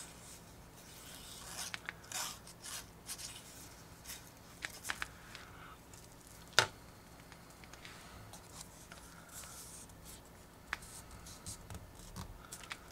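Faint handwork on paper model parts: light paper rustles and brush or tool scrapes, with a few small sharp clicks, the sharpest about halfway through.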